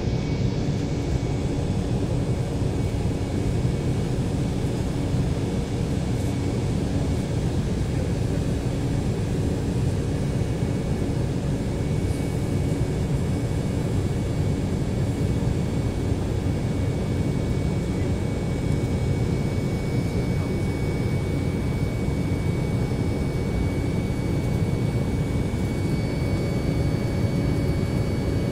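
Steady cabin noise of an Embraer 190 in flight: the drone of its GE CF34-10E turbofan engines and the airflow, heaviest in the low end, with a few faint steady tones above it.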